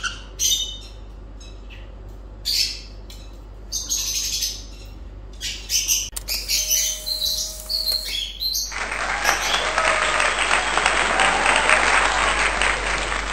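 Sun conure giving short, high chirps and squawks while it is handled. About two-thirds of the way in, a loud, steady hiss takes over.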